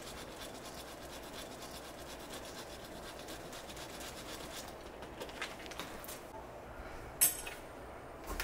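Parmigiano cheese rubbed against a hand grater: fast, fine rasping strokes that stop about five seconds in. A few soft clicks follow, then one sharp tap near the end.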